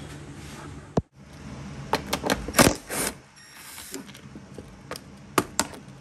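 A cordless impact driver running in short rattling bursts as it loosens a bolt on a dirt bike, with clicks and knocks between the bursts. A steady hum at the start stops with a click about a second in.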